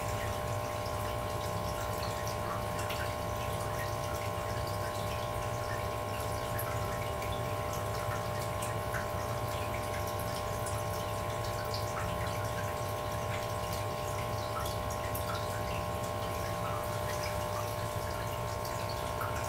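Aquarium air pump and air stone running: a steady electric hum with several held tones, and faint scattered ticks and trickling from the bubble stream.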